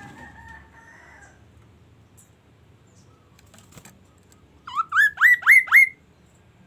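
Caged songbird calling. A faint held whistle comes at the start, then about four and a half seconds in a loud run of five quick whistles, each sweeping sharply upward in pitch.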